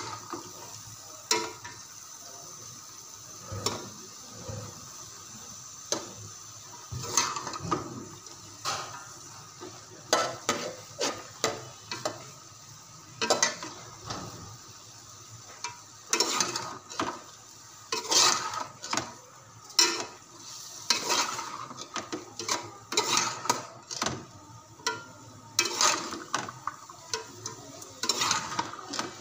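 Metal ladle scraping and knocking irregularly against a metal pot as chopped vegetables and chicken are stirred, over a steady sizzle of frying. The strokes come sparsely at first and much more often from about a third of the way in.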